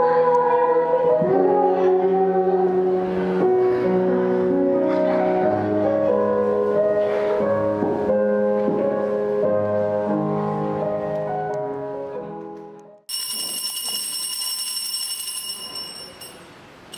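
Instrumental background music playing and fading out about three-quarters of the way through, followed by a few seconds of quieter live sound with a steady high-pitched tone.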